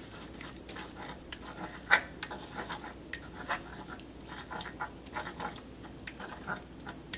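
Metal spoon stirring and scraping mashed garlic around in melted butter in a nonstick wok: irregular soft scrapes and light clinks against the pan, the sharpest about two seconds in, over a faint steady sizzle.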